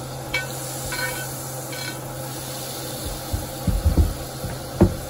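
Butter and olive oil sizzling in a hot cast iron skillet, with a metal spoon clicking against the pan a few times in the first two seconds as it stirs the melting butter. A few dull knocks come near the end.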